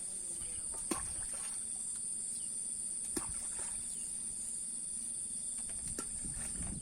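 Steady, high-pitched insect chorus buzzing without a break, with a couple of faint clicks about one and three seconds in.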